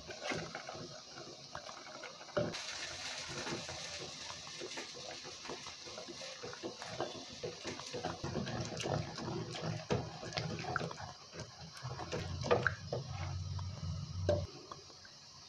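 Wooden masher churning and mashing cooked greens and dal in water in a clay pot: a steady sloshing and squelching, with frequent light knocks of the masher against the pot.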